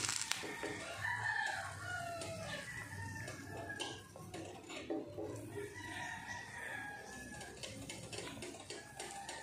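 Two faint, drawn-out calls with falling pitch, one about a second in and another about six seconds in, heard under low background noise.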